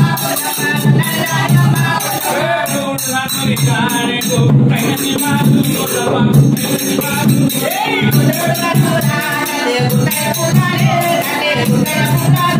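Men's voices singing a Telangana oggu katha-style devotional folk song, with small brass hand cymbals jingling and clashing in a steady rhythm.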